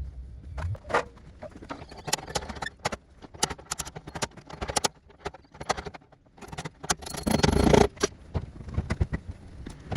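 Irregular clicks and knocks of things being handled, with a louder, longer scraping rustle about seven seconds in.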